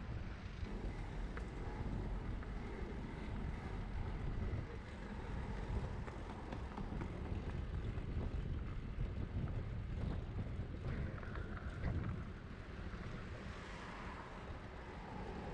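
Wind noise buffeting the microphone of a bicycle-mounted camera on the move, over the sound of street traffic. It eases a little near the end.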